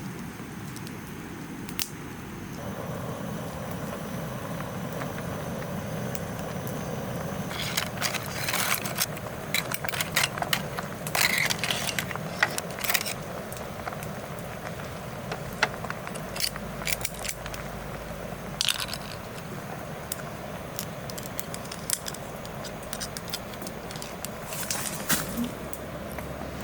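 Irregular clicks, clinks and crackles of things being handled, over a steady low hiss. The clicks come thickest in a spell around the middle and again near the end.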